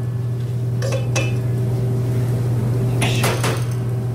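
Knife clinking against a metal baking pan and plate while bars are cut and served: a couple of short metallic clinks about a second in and again near three seconds, over a steady low hum.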